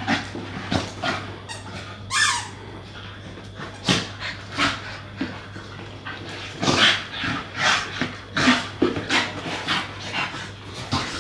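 An adult Staffordshire bull terrier and a Staffy puppy play-fighting: a rapid, irregular run of short dog vocal sounds and scuffles, with a brief falling whine about two seconds in.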